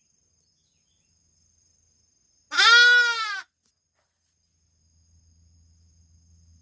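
A lamb bleating once, a single loud call of about a second, starting about two and a half seconds in: it is crying for its mother ewe.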